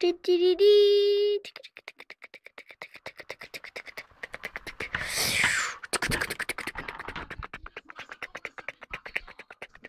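A child making play sound effects with his mouth: a loud held 'aaah' note, then a long run of rapid clicking at about ten clicks a second, with a breathy hiss about five seconds in.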